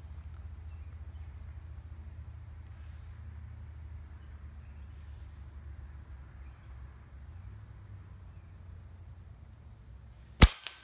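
Steady high drone of insects in the background, then a single sharp crack about ten and a half seconds in: a shot from the Hatsan Nova QE .25-calibre pre-charged pneumatic air rifle.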